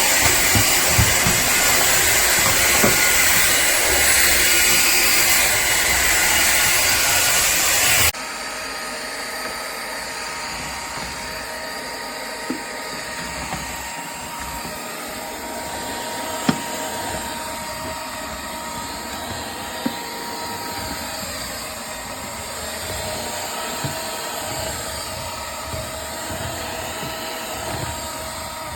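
Powerffy N10 cordless stick vacuum running with a loud, steady hiss that drops suddenly to a quieter, steady hum about eight seconds in, with a few faint clicks later on.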